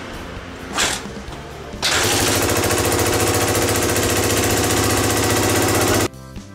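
Suzuki DR250SH single-cylinder four-stroke engine catching about two seconds in and running loud with a fast popping pulse, then stopping suddenly about six seconds in. The racket comes from exhaust leaking through a second large hole in the rusted muffler, which the clamp band over the first hole does not cover.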